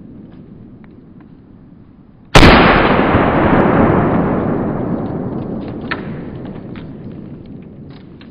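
A single loud, sudden blast about two seconds in, followed by a long rolling echo that fades away over several seconds.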